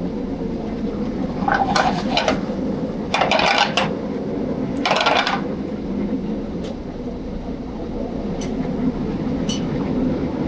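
Steady roar of a busy restaurant kitchen line: ventilation and gas ranges with pans cooking. Three brief louder noises come in the first half, and a few light clinks later.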